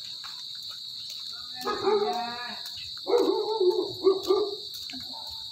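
A dog barking and yelping: one drawn-out call about two seconds in, then a quick run of barks. Steady cricket chirring continues underneath.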